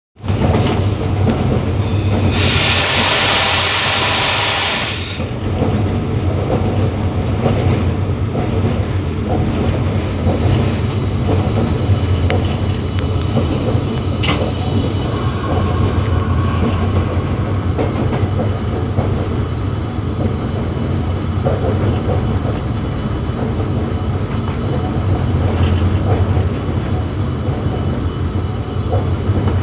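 Moving diesel locomotive, heard from on its hood: a steady low engine hum under the continuous rumble of wheels on the rails. A louder rushing burst lasts about three seconds, starting about two seconds in.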